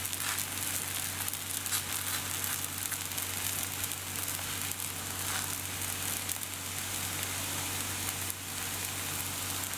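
Thin disc of yeasted flour-and-semolina dough frying in hot oil on a flat pan, a steady sizzling hiss with fine crackles.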